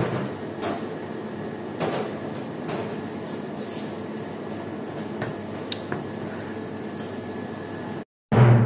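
Steady kitchen room noise with a few light knocks from a glass jar of lemon water being handled and sipped from through a straw. Near the end the sound drops out for a moment, then loud outro music cuts in with a low drum hit.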